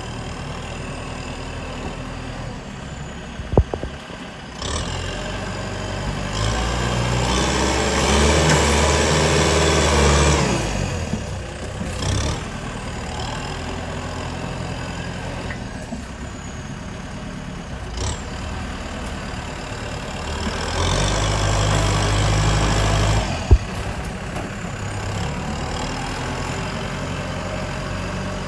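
Heavy diesel earth-moving machinery running at idle, its engine twice rising to a louder working pitch for a few seconds under load. Two sharp metallic clanks stand out, one early and one near the end.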